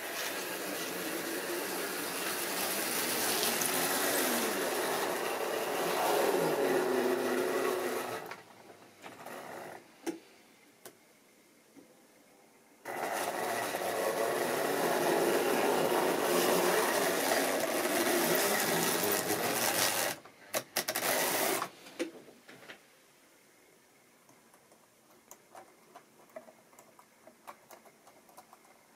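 Tri-ang OO-gauge model train running on the track, its electric motor whirring and its wheels rattling over the rails, rising and falling in pitch with speed. The loud running comes in two passes, from the start to about 8 seconds in and again from about 13 to 20 seconds. After that it is quieter, with scattered light clicks.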